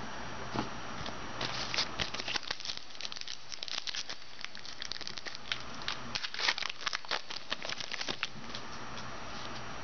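A trading-card pack's wrapper being torn open and crinkled by hand, in two spells of crackling, one from about a second and a half in and another from about six seconds in.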